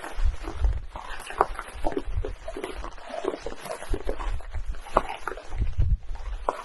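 Outdoor field recording: many short, irregular clicks and clucks over a low, gusting rumble like wind on the microphone. The recordist takes these for the vocals of unknown creatures in the woods.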